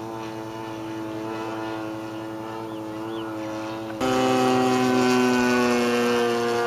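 Zenoah G-45 two-stroke petrol engine of a large radio-control model biplane running steadily in flight, heard from the ground. About four seconds in, the drone jumps abruptly louder and its pitch shifts.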